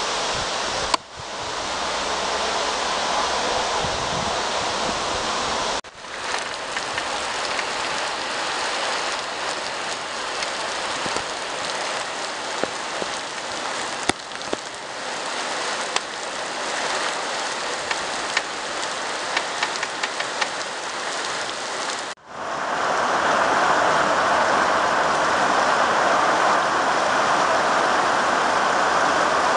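Heavy wind-driven rain pouring down in a steady hiss, with scattered sharp ticks of drops. The sound cuts out for an instant three times, and after the last break, about three-quarters of the way in, the downpour is louder.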